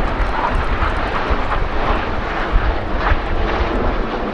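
Steady jet roar from the Red Arrows' formation of BAE Hawk T1 jet trainers flying overhead.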